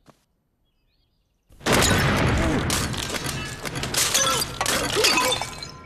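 A sudden loud cartoon crash of things smashing and shattering, starting about a second and a half in and going on for several seconds, with bits of ringing among the clatter, then slowly fading.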